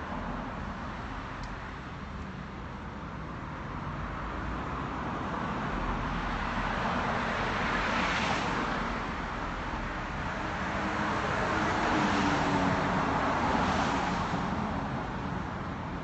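Road traffic on a multi-lane avenue, with cars passing; the sound swells loudest about eight seconds in and again from about twelve to fourteen seconds.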